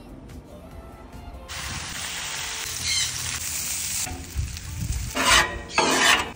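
Background music, then from about a second and a half in, bacon and shredded hash browns sizzling steadily on a hot flat-top griddle. Near the end, two loud scrapes of a steel bench scraper across the griddle top.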